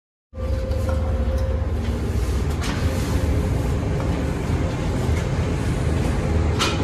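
A steady low rumble on a handheld phone's microphone while it is carried, with a few faint clicks about two and a half seconds in and near the end.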